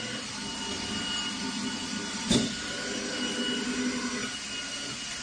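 CNC milling machine with a disc-type automatic tool changer running during a tool change: a steady mechanical hum with thin whining tones from its motors, and one sharp clack a little over two seconds in.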